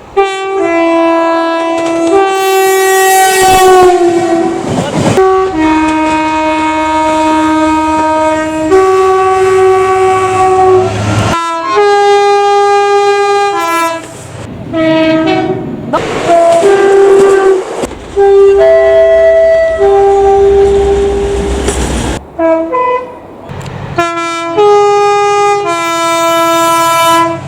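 Train horns sounding in a string of blasts, some long and some short, each a steady pitched tone, cut together one after another with sudden changes between clips. The running noise of trains lies beneath them.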